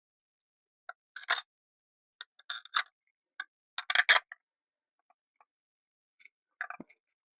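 Irregular small metallic clicks and taps of hand tools and engine parts being handled, in scattered clusters, the loudest about four seconds in.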